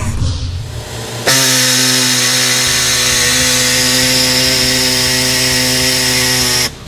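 A motor running steadily with a buzzing, even-pitched drone, starting suddenly about a second in and cutting off just before the end.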